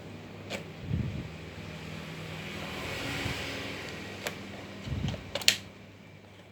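Sharp clicks from an airsoft Glock 19 gas pistol: a faint one near the start, another past the middle, and the loudest, a quick double click, near the end. Under them a broad rush of noise swells and fades in the middle, and there are a few low thumps.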